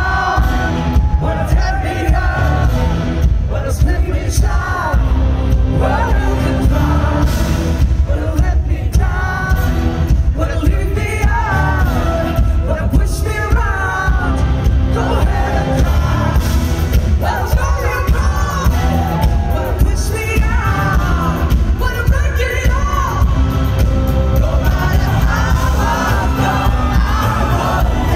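A woman singing a pop song live into a microphone, backed by a full band with drums and heavy bass, as heard from the audience at a loud concert.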